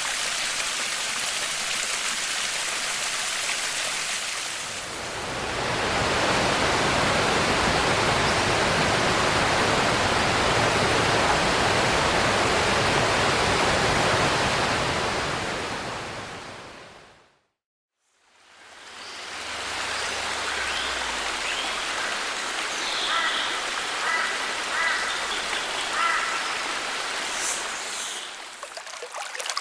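Rushing water of a rainforest creek and waterfall. It grows louder and fuller about five seconds in, then fades out to silence a little past halfway. A gentler stream fades back in, with a few short high calls near the end.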